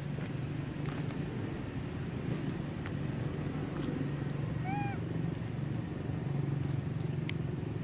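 A macaque gives one short, high, arching squeak about five seconds in, over a steady low rumble and scattered small clicks.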